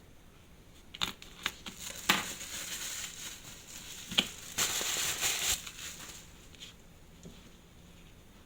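Small clicks and crinkling rustle from handling a wristwatch and small tools at the bench: a few sharp clicks, with two spells of dry crinkling noise in between.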